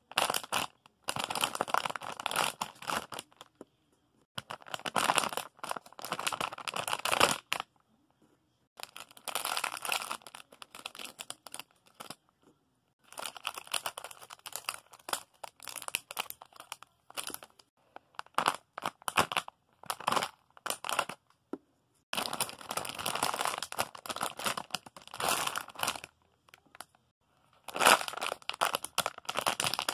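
Crinkling and rustling as squishies and their wrappings are handled and moved, in irregular bursts of one to a few seconds with short pauses between.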